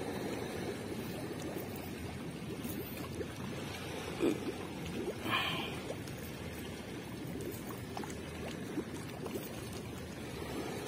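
Steady rush of river water flowing past a concrete weir bank, with a brief knock about four seconds in.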